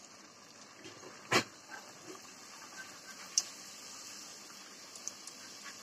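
A luchi frying in hot oil in a kadai, a soft steady sizzle. A sharp knock about a second and a half in and a lighter tap near the middle come from the metal slotted spoon striking the pan.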